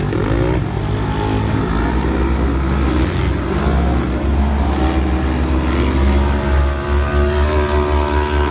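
Engines of several UTV side-by-side racers running hard together. Their pitches rise and fall as they accelerate and back off.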